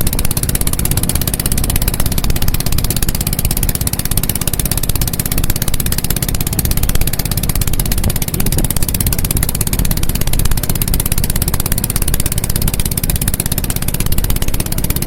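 Small boat engine running steadily, a constant low rumble with a fast, even pulse.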